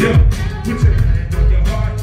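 Hip-hop beat playing loud over a concert PA, with a deep kick drum that drops in pitch and sharp percussion hits in a steady rhythm.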